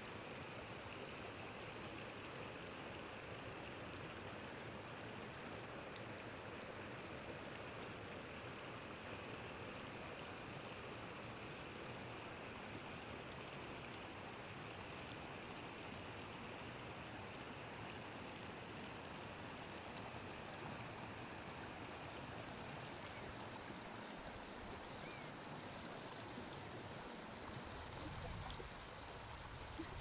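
Flowing water rushing steadily, with a low rumble coming in near the end.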